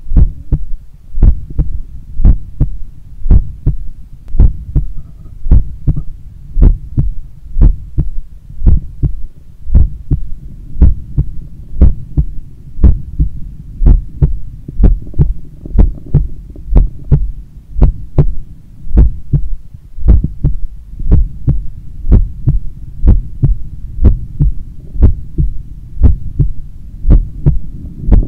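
A human heartbeat picked up by a device pressed against the bare chest: steady double thumps (lub-dub) about once a second, over a continuous low rumble.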